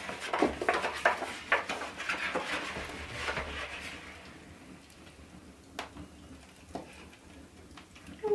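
Paper rustling and crackling as an envelope is opened and a card is unfolded, a quick run of crackles for about the first four seconds, then quieter with a couple of faint clicks.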